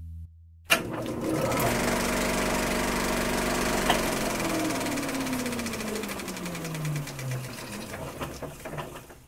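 Film projector sound effect: a sharp click as it starts, then a rapid mechanical clatter. A tone falls in pitch through the middle, and the clatter fades and cuts off near the end.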